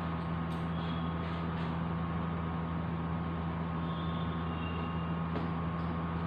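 A steady low hum over even background noise, unchanging throughout, with a few faint, brief high tones.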